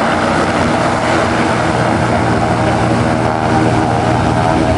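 Piston engine and propeller of a single-engine aerobatic monoplane running steadily at low power while taxiing.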